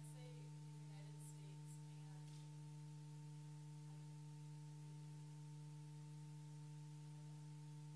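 Near silence in a lecture room under a steady low electrical hum from the sound system, with a few fainter steady tones of the same hum above it.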